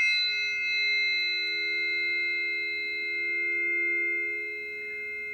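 Struck tuning forks ringing on, several steady pure tones, two low ones close together with higher tones above, slowly fading.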